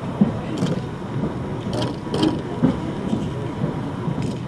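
Low murmur of a room full of people talking indistinctly, with a few short, sharp clicks of camera shutters as the group poses for photographs.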